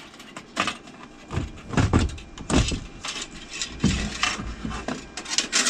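Irregular metallic clicks, rattles and knocks as an A320 avionics extract fan and its metal mounting clamps are handled and the fan is worked free of its mounting, with a few duller thumps around the middle.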